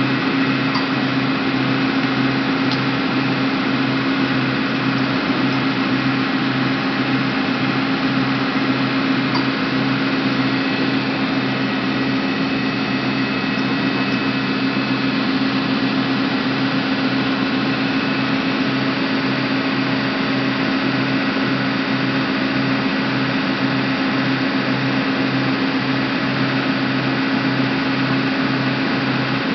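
TOS SUA 125 heavy CNC centre lathe running with its large four-jaw chuck spinning: a steady mechanical hum with a regular low throb underneath.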